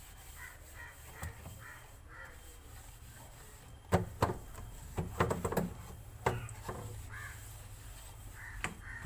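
Crows cawing repeatedly in the background. A cluster of sharp clicks and knocks from handling things during fridge cleaning comes about four to seven seconds in.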